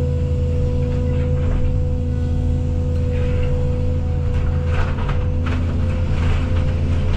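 Case CX220E excavator's diesel engine running steadily under load with a constant hydraulic whine, while barn timbers crack and crunch in short bursts, most thickly a few seconds in.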